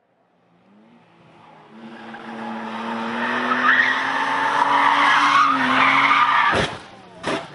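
A BMW 3 Series coupe's engine and tyres coming into a tight bend at speed, the tyres squealing loudly through the turn as the car slides. The sound builds steadily, then cuts off abruptly about two-thirds of the way in, followed by two sharp cracks.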